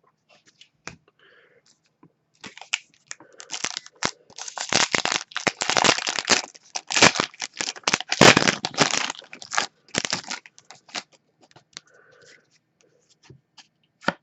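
Foil trading-card pack wrapper being torn open and crinkled in the hands: several seconds of crackling rips and rustles, loudest in the middle.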